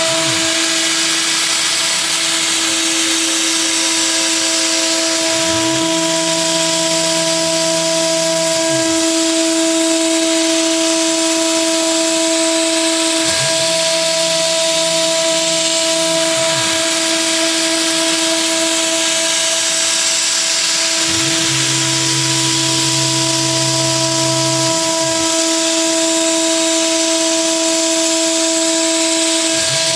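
DIY CNC router spindle running with a steady high whine while milling aluminium. A lower motor hum sweeps in and cuts out three times, each lasting about three to four seconds.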